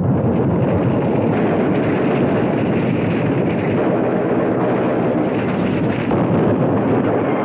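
Battle sound of artillery fire and explosions: a continuous, dense din at a steady level, with no single blast standing out.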